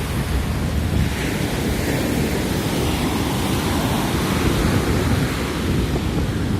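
Ocean surf breaking and washing up the beach, with wind buffeting the microphone in a steady low rumble. The wash swells about a second in and again midway.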